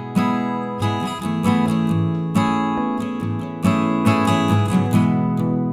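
Background music: guitar chords strummed, a fresh strum about every second.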